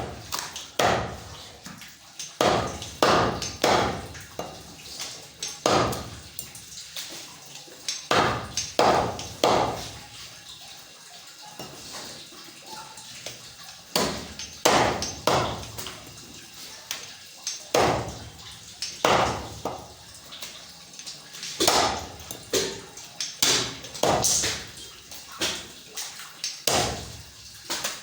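A butcher's blade chopping goat leg meat on a cutting block: repeated sharp strikes in irregular clusters, several in quick succession and then a short pause.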